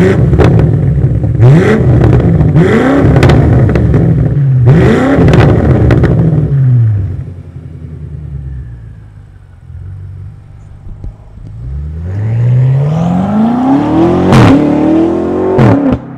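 BMW F90 M5's twin-turbo V8 through an Eisenmann race exhaust with non-resonated centre pipes. It is blipped sharply several times while standing, with cracks on the revs, then settles to idle. From about twelve seconds in it pulls away hard, the pitch climbing, with a gear change and a sharp crack about two seconds later.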